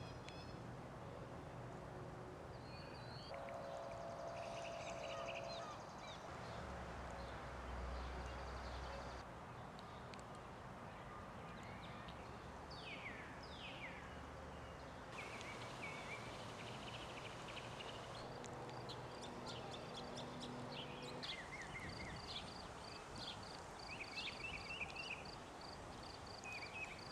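Songbirds chirping and calling over a steady background noise, with a couple of downward-sweeping calls about halfway through and a rapid series of repeated high notes near the end.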